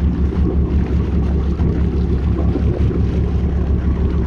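Boat's inboard engine running steadily at low speed, a continuous low drone.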